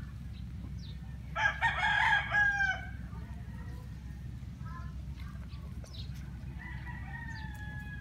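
A rooster crowing once, loud, about a second and a half in, ending on a falling note; a fainter drawn-out call follows near the end, over a steady low rumble.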